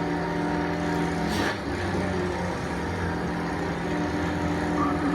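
Sports racing car engine idling steadily during a pit-area tune-up, its note holding nearly constant, with a brief hiss about a second and a half in.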